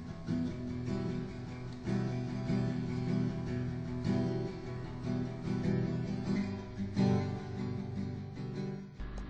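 Acoustic guitar music, strummed chords changing every couple of seconds. The music stops suddenly near the end, leaving a low steady hum.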